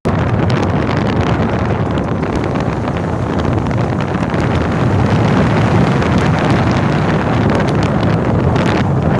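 Storm-force wind buffeting the microphone: a loud, continuous low rumble and roar that barely lets up.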